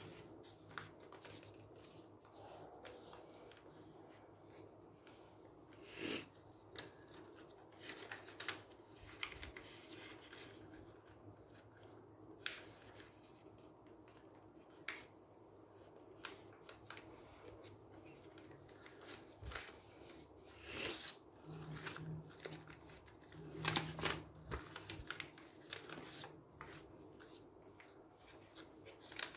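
A sheet of paper being folded and creased by hand, with scattered short crinkles and rustles as it is pressed flat and slid over newspaper, over a faint steady hum.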